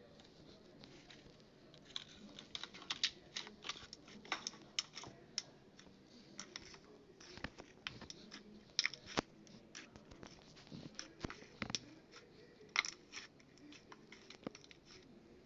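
Slime being worked by hand, giving irregular crackling pops and clicks that come thickly from about two seconds in and thin out near the end.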